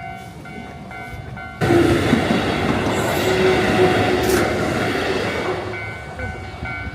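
Train passing at a station platform: a loud rush of wheel and air noise starts suddenly about a second and a half in, with a faint steady hum, and slowly fades near the end.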